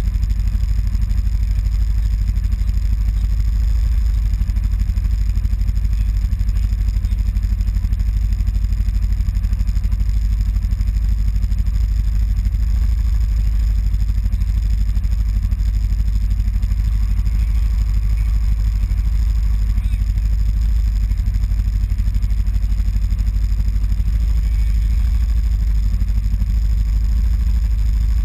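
Kawasaki Teryx side-by-side's V-twin engine idling steadily with the vehicle at a standstill, a constant low rumble with no revving.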